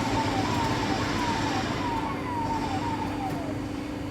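Rafamet UBC 150 CNC wheel lathe running with a steady hum, and a run of about six short falling whines from an axis drive as the Y1 axis is moved.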